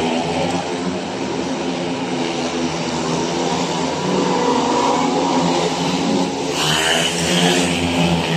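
Several speedway bikes, 500 cc single-cylinder methanol-burning racing engines, running hard around the track, their pitch rising and falling as the riders throttle on and off through the bends. A brief louder hiss comes in about two-thirds of the way through.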